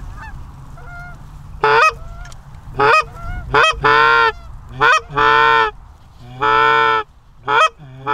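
Goose calls blown by hunters, loud and close: short breaking clucks alternating with longer held honks, starting about two seconds in. In the first second or so, faint honks of distant geese.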